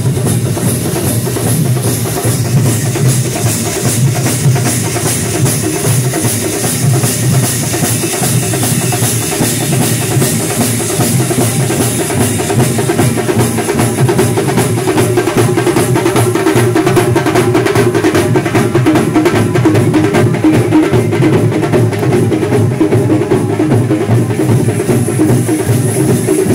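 A procession drum troupe beating large stick-played drums together: loud, fast and continuous massed drumming with a heavy, booming low end.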